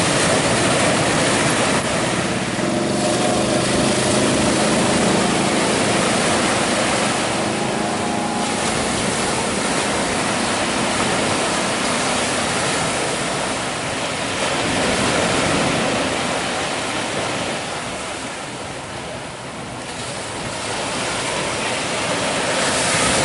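Ocean surf breaking: a steady rushing wash of waves that swells and eases, dipping about three quarters of the way through before building again.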